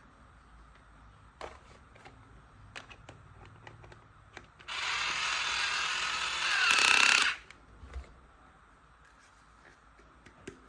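A small electric drill's motor runs for about two and a half seconds, getting louder near the end, then stops. Light clicks of handling come before and after.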